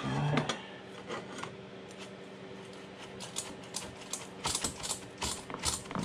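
Metal clicks and knocks as a Yoshimura RS2 exhaust muffler is fitted against its mounts on an ATV, with a quick run of clicks in the second half.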